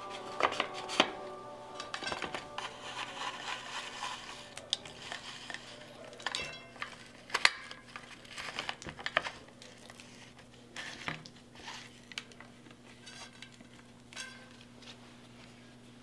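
Front wheel of a Colnago V3Rs road bike being fitted into its fork: scattered sharp clicks and light metallic clinks of parts being handled. The loudest come about half a second, a second, and seven and a half seconds in, over a low steady hum.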